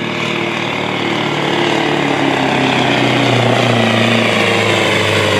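Scania 143M pulling truck's V8 diesel engine running hard under full load as it drags a weight-transfer sled; its pitch falls slowly over a couple of seconds and then holds as the growing sled weight pulls the engine down.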